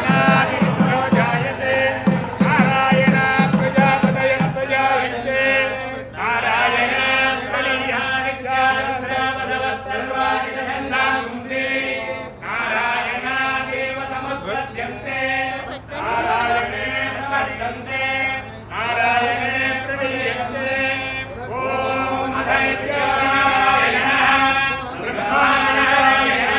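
Several voices chanting Sanskrit Vedic mantras together in a steady recitation, phrase after phrase of a few seconds each with brief pauses for breath.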